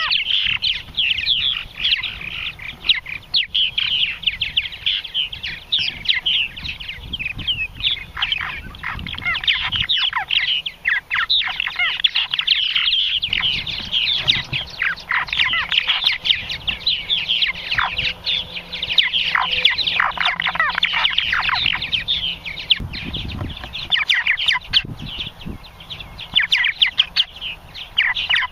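Purple martins calling at the entrance of a nesting gourd: a rapid, unbroken stream of chirps and gurgling notes, with a run of falling notes about halfway through.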